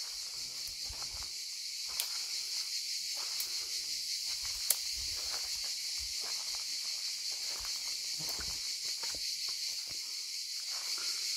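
Footsteps walking at an uneven pace, over a steady high-pitched drone of insects.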